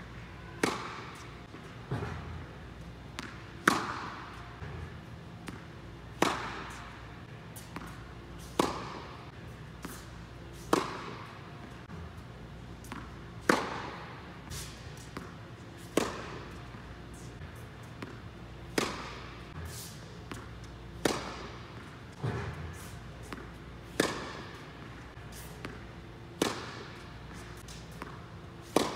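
Tennis balls struck by a racquet about every two and a half seconds, each sharp hit ringing on in the echo of an indoor court hall, with softer knocks in between and a steady low hum underneath.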